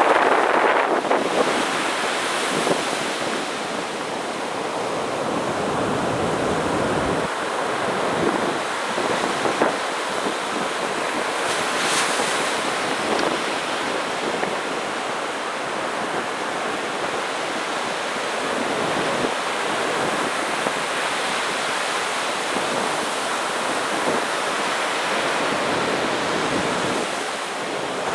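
Sea surf breaking on a beach in a continuous wash, with a louder break in the first second or so, then an even, steady rush.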